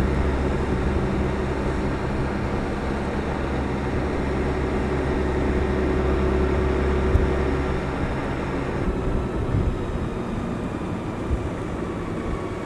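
Motorcycle engine running steadily on the move, with road and wind noise. The steady low drone weakens about eight seconds in.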